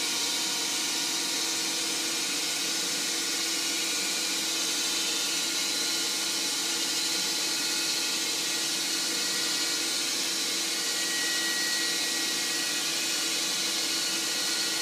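CNC-converted Grizzly G0602 benchtop lathe's spindle and its drive motor running steadily at about 1685 RPM. It is a steady hum with several held tones and no change in level.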